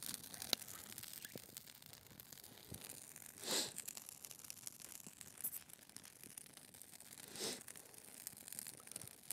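A fire of dry twigs and brush crackling, with many faint pops and ticks. There are two brief, louder noisy swells, about three and a half seconds in and again near the end.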